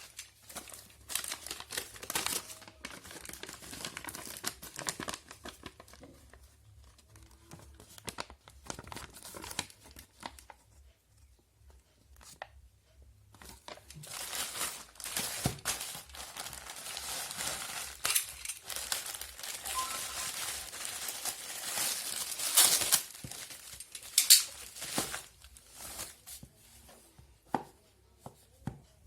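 Plastic packaging being crinkled and torn by hand while a phone box is unwrapped, with scattered clicks. It is busier in the second half, with two sharp cracks close together.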